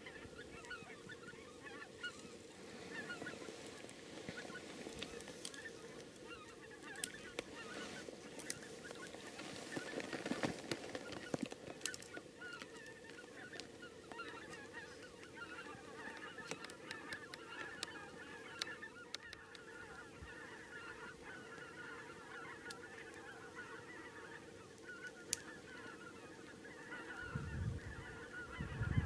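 A large flock of wild geese calling continuously, a dense chorus of overlapping honks. Low rumbles come in near the end.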